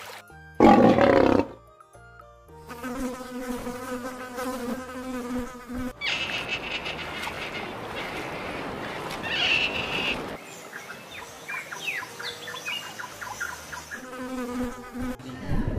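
Housefly buzzing, a steady low hum that comes in twice. Before it there is a loud burst of about a second, and between the buzzes there are short high chirps.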